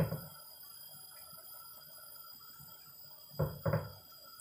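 Faint steady hiss with a soft knock at the start and two more short knocks close together about three and a half seconds in, from handling in the kitchen by the stove.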